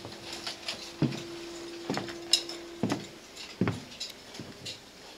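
Footsteps thudding on a plywood subfloor, about one a second, over a steady hum that stops about three seconds in.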